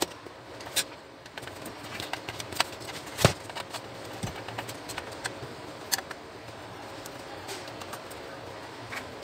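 Screwdriver working screws out of the Epson TM-U220 printer's sheet-metal frame: scattered small metal clicks and scrapes, with one sharper knock about three seconds in.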